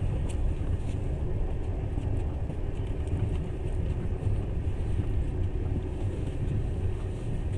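Passenger train running at speed, heard from inside the carriage: a steady low rumble of the running gear on the rails.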